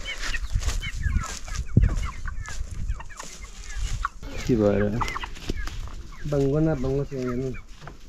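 Domestic chickens clucking, with many short high chirps throughout and a few longer, lower calls in the second half.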